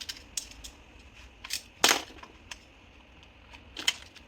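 Hands handling small computer parts and packaging: a few short plastic clicks and taps, the loudest a sharp click about two seconds in.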